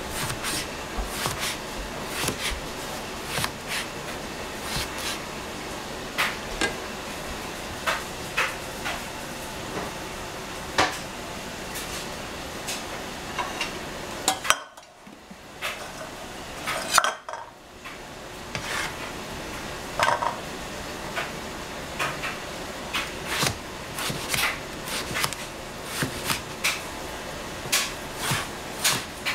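Chinese cleaver chopping eggplant on a plastic cutting board: a run of irregular, sharp knocks as the blade meets the board. The chopping pauses about halfway through, and the pause is broken by one louder knock.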